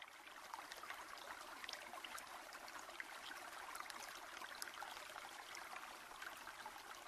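Faint, steady trickle of running water, a soft even hiss dotted with small crackles and drips.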